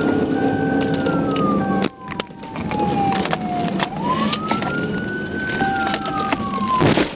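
Police siren wailing in slow rising and falling sweeps, about one cycle every four seconds, over road and engine noise. The sound cuts out briefly about two seconds in, and a short loud rush of noise comes near the end.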